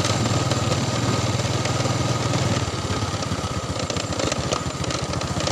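Motorcycle engine running on the move. About two and a half seconds in it eases off and its separate firing pulses become audible, then it picks up again near the end.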